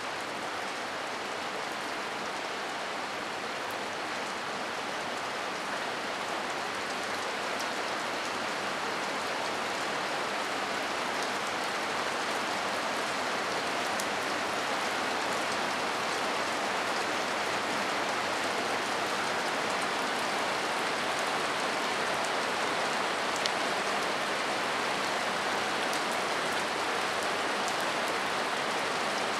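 Heavy rain falling steadily, a dense even hiss with a few sharper drip ticks, growing slightly louder over the stretch.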